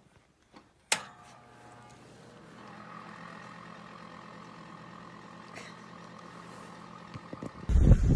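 Electric space heater switched on with a sharp click about a second in, then running with a steady hum and a faint higher whine. Near the end, loud wind noise on the microphone cuts in.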